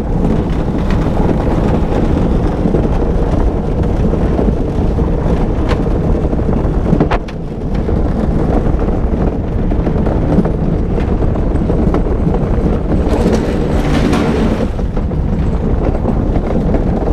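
Gravity luge cart rolling fast down an asphalt track: a steady rumble of the wheels on the tarmac, mixed with wind on the microphone. There is a brief lull about seven seconds in and a hissier stretch near the end.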